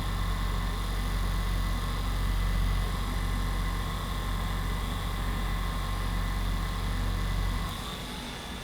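A small electric motor running with a steady low hum, switching off abruptly near the end.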